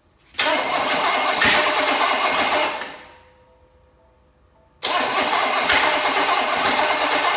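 A 305 cubic inch small-block Chevy V8 cranked over by its starter with the choke shut, in two bursts of about two and a half seconds each. It does not keep running: its only fuel is a little gas poured into the carburetor bowl, and that has run out.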